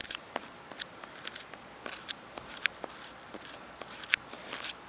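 Irregular small crisp crunches and clicks of snow being disturbed, several to the second, faint.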